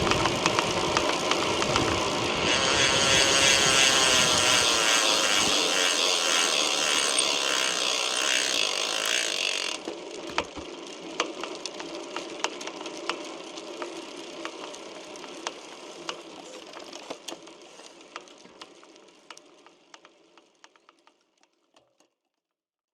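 Chris King R45D rear hub: a loud, fast buzz from the freehub that cuts off suddenly about ten seconds in. It is followed by scattered sharp clicks over a fading hiss as the wheel slows to a stop. The hub has the recurring crackling ('bakibaki') noise that returned even after its internals were replaced.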